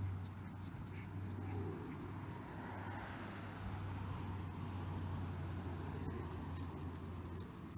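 Light jingling and clicking from two Scottish terriers walking on leash over concrete: collar tags and leash clips jingle, and claws tick on the pavement. A steady low hum underneath stops shortly before the end.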